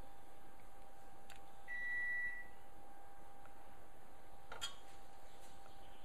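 A short, steady high beep about two seconds in, then a metal fork clinking once against the stainless steel pot about four and a half seconds in, over a faint steady hum.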